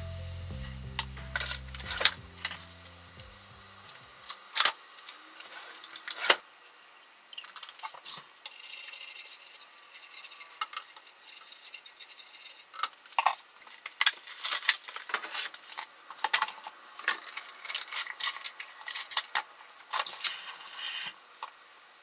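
Kitchen utensils clicking, knocking and scraping against a frying pan of sauce, with a light sizzle now and then. Soft background music fades out in the first few seconds.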